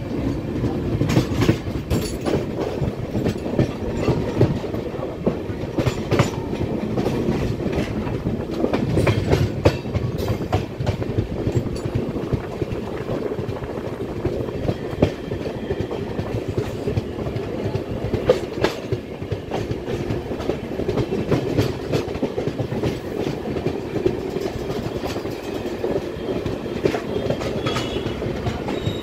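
Rajdhani Express LHB coach wheels rolling at low speed, a steady rumble with frequent irregular clicks and clacks as the wheels cross rail joints and points, heard through an open coach door.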